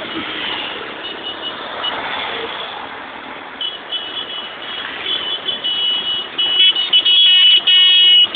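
Wind and motorcycle running noise from riding in a convoy, with vehicle horns honking: short toots from about three and a half seconds in, then loud, long horn blasts near the end.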